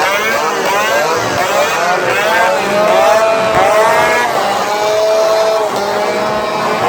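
Several straight-exhaust chainsaws with no muffler revving together. Their pitches rise and fall in quick overlapping revs, then are held at steady high revs for a few seconds.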